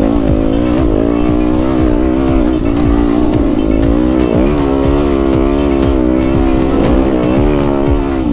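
Yamaha WR250F dirt bike's single-cylinder four-stroke engine running under way, its revs rising and falling with the throttle.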